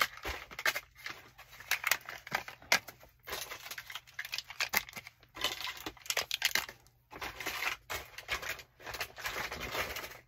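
Plastic bags and packaging crinkling and rustling in irregular bursts, with short pauses between, as supplies are handled.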